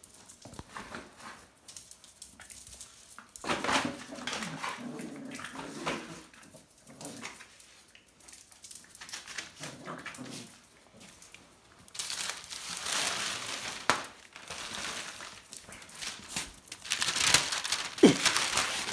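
Puppies play-fighting: scuffling and pawing with bursts of crinkling paper, and a short high dog sound about 18 seconds in.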